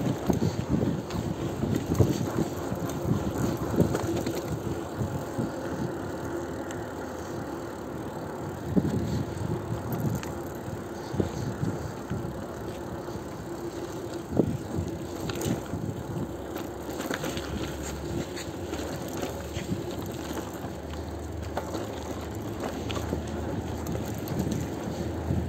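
Bicycle being ridden over city streets: a continuous rattle from the tyres and frame, with frequent small knocks and clicks over bumps. A low rumble joins in about two-thirds of the way through.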